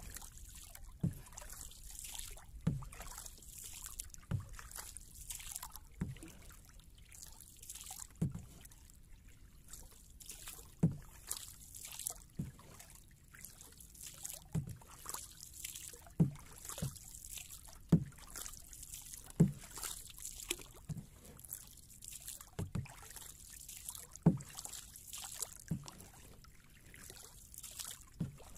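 A wooden paddle stroking a small outrigger boat along at an even pace: water splashing and dripping off the blade with each stroke, and a low knock about every one and a half to two seconds as the paddle meets the hull.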